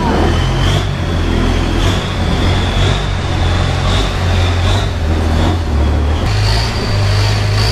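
Boat engine running steadily, then speeding up about six seconds in, its low hum and a thin high whine both rising in pitch.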